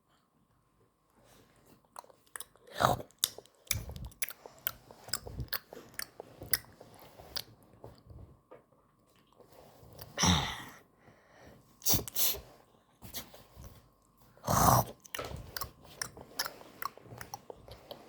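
A person chewing and crunching food, with many small crackly clicks and a few louder crunching bites.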